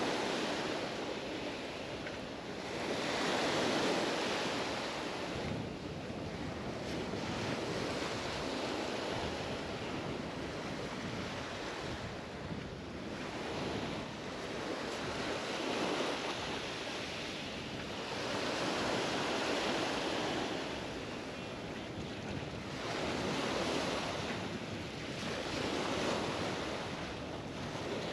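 Mediterranean waves breaking and washing up the beach, swelling and fading every few seconds, with some wind on the microphone.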